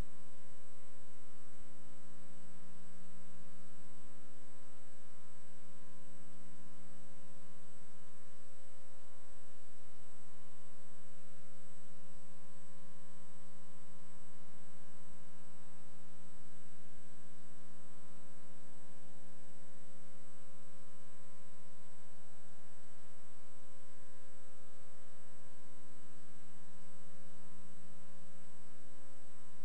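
Steady electrical mains hum, a low buzzing drone with a thin high whine above it, unchanging throughout.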